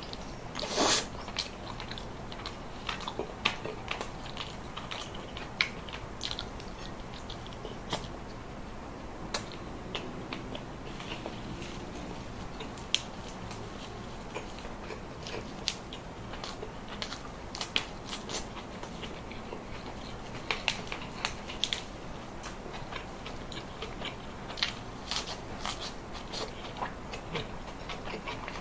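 Close-miked eating: chewing and biting with scattered crisp clicks and crunches, and one louder bite about a second in.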